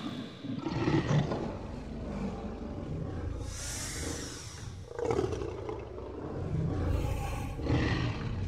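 Tyrannosaurus rex roar sound effect: low growls that rise and fall, with breathy hisses about four seconds in and again near the end.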